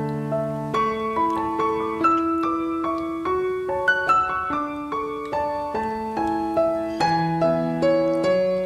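Background piano music: a melody of single notes over held low bass notes.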